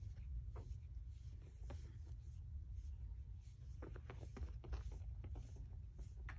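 Faint, scratchy rustling of a bare foot rubbing a small dog's fur, repeated stroke after stroke, with a quick run of soft clicks about four seconds in.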